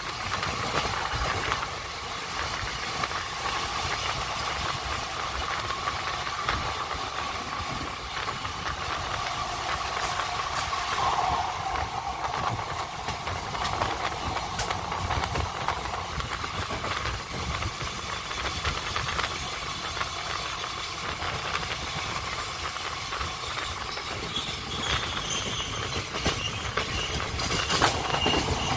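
Passenger train running along the track, heard through an open barred window: a steady rumble of wheels on rails mixed with rushing air and a steady whine.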